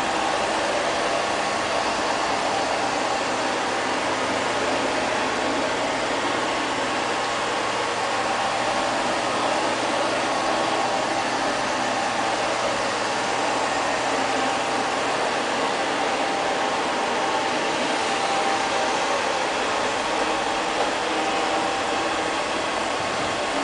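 LL-306 (X500) robot vacuum cleaner running as it moves about, a steady whir of its suction motor with a faint whine.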